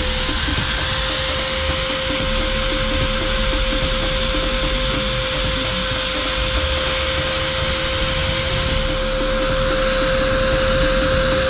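Electric drill mounted in a drill press stand running at a steady speed, a constant whine that holds level.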